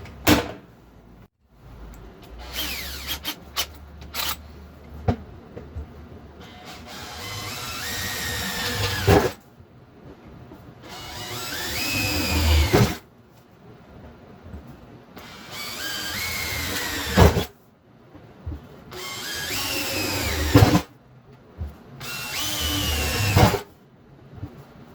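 Electric drill boring holes in a metal fuel tank, stepping up through bit sizes. It runs about five times, each run growing louder over a few seconds and then cutting off with the motor's pitch falling.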